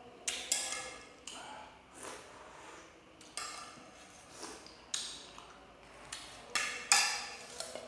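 Spoon clinking against a plate or bowl during a meal, several sharp strikes with a short ring, the loudest near the end.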